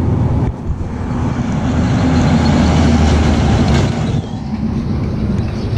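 A heavy truck with a trailer driving past, its engine and tyre noise building to its loudest about three seconds in, then easing off.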